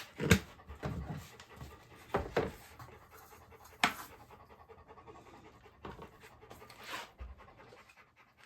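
A dog panting, with several sharp knocks, the loudest about a third of a second in and another near four seconds in.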